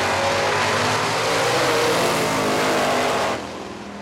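Two drag-racing cars launching off the line at full throttle and accelerating hard down the strip, their engines rising in pitch. The sound drops off suddenly a little over three seconds in.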